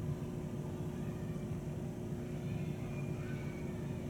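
Steady low rumble with a constant hum underneath, unchanging throughout.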